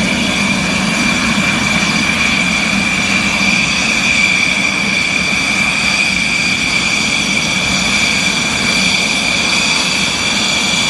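Fighter jet engines running steadily: a high, unchanging whine over a continuous rush, with no change in power.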